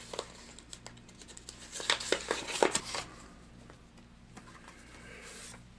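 Paper rustling and crinkling as a letter is unfolded and handled, in short bursts that are loudest about two to three seconds in.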